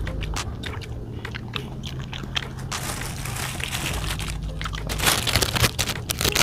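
Close-up eating of chicken feet: wet mouth clicks and chewing noises. From about three seconds in, a thin plastic bag is handled and crinkles, loudest near the end.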